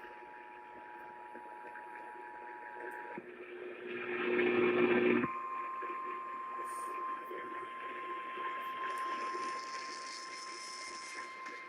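EAS two-tone attention signal, a steady dual tone, that stops about three seconds in. About two seconds of loud, noisy, garbled broadcast audio follows. Then the single steady 1050 Hz NOAA Weather Radio warning alarm tone starts and keeps going.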